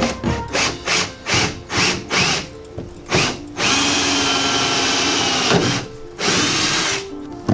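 Power drill driving screws into a wall panel, run in short trigger pulses at first, then a steady run of about two seconds near the middle and a shorter one near the end.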